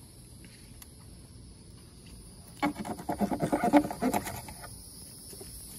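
Steady high-pitched chorus of insects, with about two seconds of crackling, crunching and squeaking from about two and a half seconds in as a knife cuts through the leg joint of a green iguana carcass.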